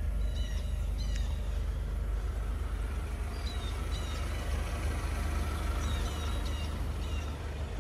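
Steady low outdoor rumble with faint, short, high bird chirps scattered through it.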